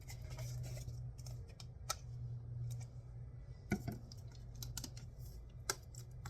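Plastic water bottles being handled: scattered sharp clicks and crinkles, a few louder ones about two, four and six seconds in, over a low steady hum.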